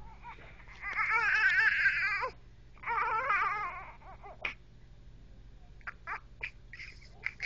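Newborn baby crying: two long, wavering wails, then a few short whimpers near the end.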